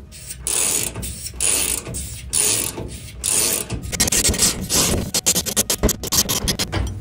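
Hand socket ratchet clicking as it is worked back and forth, at first about one stroke a second, then quicker short strokes from about four seconds in. It is turning the draw stud of a 2-inch Milwaukee knockout punch to cut a round conduit hole in a sheet-metal enclosure.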